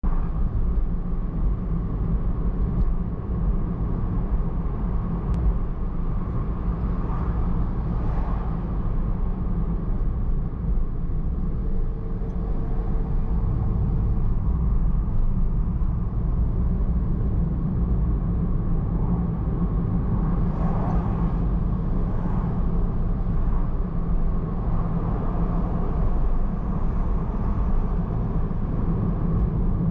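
A car driving along a city road: a steady low rumble of engine and tyre noise that runs on without a break.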